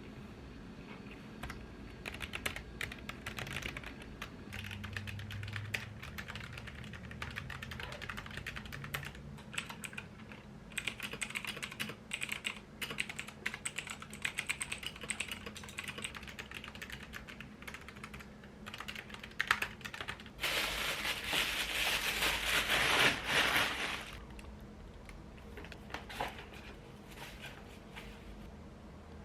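Typing on a mechanical keyboard: quick, irregular key clicks in runs. About two-thirds of the way through comes a louder, dense stretch of noise lasting about three and a half seconds. After it come only a few scattered clicks.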